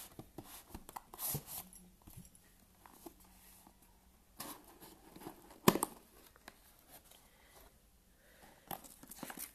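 Cardboard speaker packaging being handled by hand as the box is slid out of its sleeve and opened: scattered scrapes and rustles, with one sharper knock a little past halfway.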